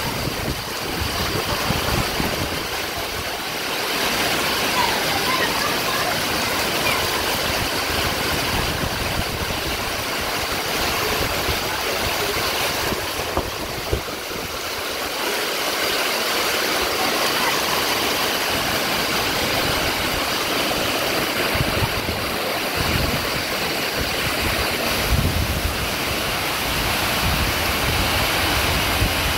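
Torrential rain and strong wind in a tropical storm: a steady, dense hiss of pouring rain, with gusts of wind rumbling on the microphone that swell and fade.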